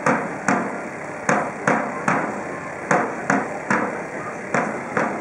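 A drum beaten in a steady rhythm: sharp strikes about 0.4 s apart in groups of three, each group followed by a short pause, repeating.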